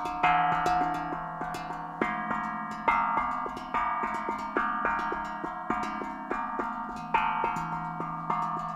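Steel tongue drum played with the fingers: a melody of struck, ringing metal notes, about two or three a second, each note ringing on under the next.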